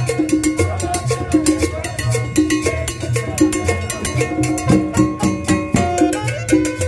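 Live street band playing upbeat Latin dance music. Steady percussion clicks and drum strokes run over a repeating bass line from the upright bass, with saxophone on top.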